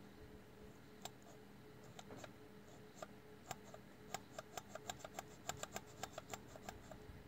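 Light metallic clicks as an Edelbrock Quadrajet's power piston and metering rod hanger is worked up and down in its bore by a finger: a few scattered clicks at first, then about four or five a second from about four seconds in.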